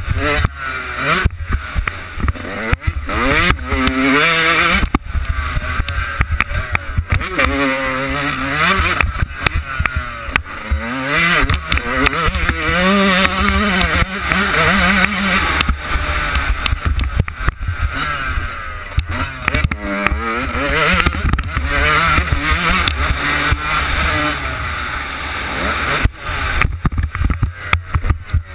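Yamaha YZ125 two-stroke motocross engine revving up and down repeatedly as the bike is ridden around the track, with wind buffeting the helmet-mounted microphone.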